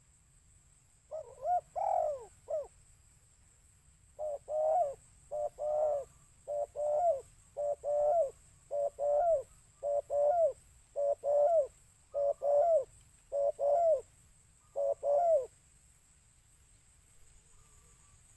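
Spotted dove (tekukur) cooing: a short opening phrase, then a long series of paired coos repeated about once a second, a recorded call of the kind played to lure the birds.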